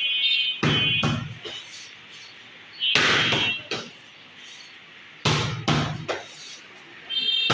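Boxing gloves smacking focus mitts and a padded chest protector in three quick combinations of punches, about two seconds apart. Each combination is a few sharp hits.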